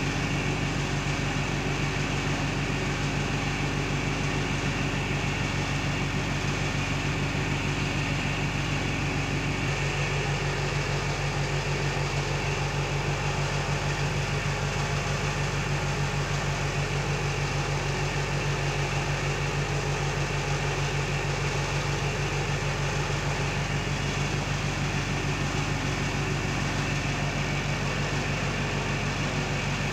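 A steady low machine hum, unchanging in level throughout.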